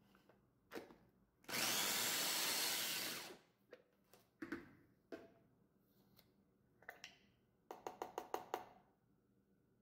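Electric mini food chopper running for about two seconds as it minces garlic cloves. Then come a few plastic clunks as the motor top is taken off, and the chopper blade is tapped against the bowl about seven times in quick succession to knock the minced garlic off.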